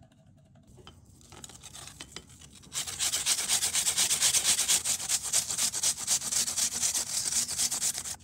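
A peeled apple being grated by hand on a metal grater: rapid back-and-forth rasping strokes, soft at first, then loud and fast from about three seconds in, stopping sharply near the end.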